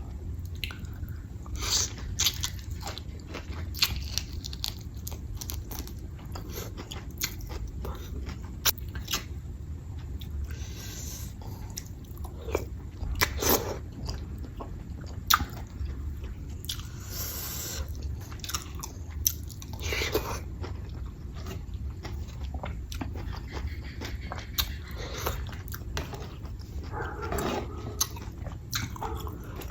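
A person eating close to the microphone: chewing and biting food, with many short wet clicks and crunches scattered throughout, over a steady low hum.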